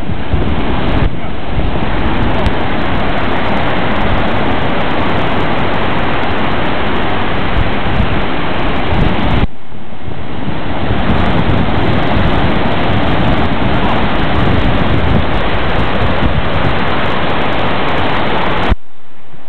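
Ocean surf washing in, heard as a loud steady rush, with wind buffeting the microphone. The noise drops sharply for a moment about halfway through and again near the end.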